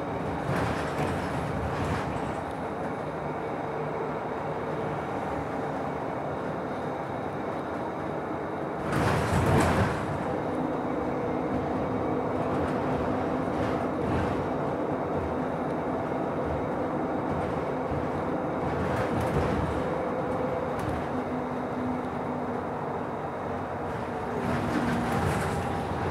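Inside a Nova Bus LFS city bus under way: steady engine hum and road noise, the hum shifting in pitch a few times, with a brief louder rush of noise about nine seconds in.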